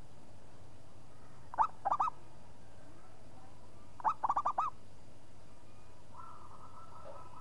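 Zebra dove (perkutut) cooing: two short song phrases about two and a half seconds apart, each a lead coo followed by a quick run of bubbling notes, the second phrase longer.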